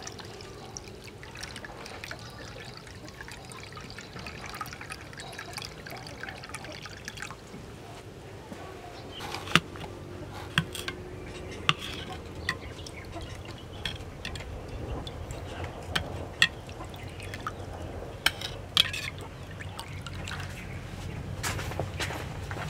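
Water poured in a steady stream into a ceramic bowl of seasoning. After that, a metal ladle stirs the broth, with several sharp clinks of metal on ceramic in the second half.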